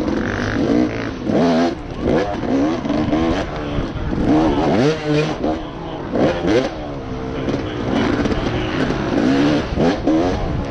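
Racing dirt bike engine, heard up close, revving up and falling back again and again as the throttle is worked over the obstacles, about once a second. Short knocks and clatter come in between the revs.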